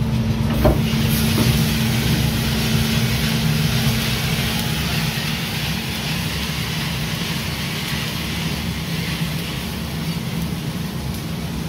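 Freshly roasted coffee beans pouring out of a Probat drum roaster into its cooling tray, a steady rushing rattle over the steady hum of the roaster's motors and fan, with a single knock near the start. This is the discharge at the end of the roast, the beans going into the tray with rotating stirring arms to cool.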